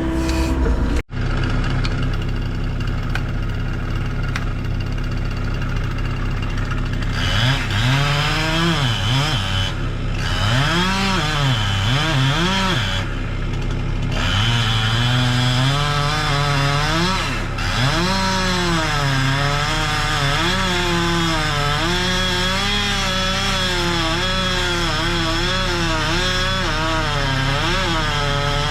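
Chainsaw cutting wood, its engine pitch dipping under load and climbing back again and again from about seven seconds in, after a steady engine drone.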